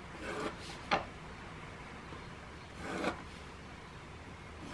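Plastic set square being slid over drawing paper and set down, twice: a short scrape ending in a light tap, once about half a second in and again near the 3-second mark.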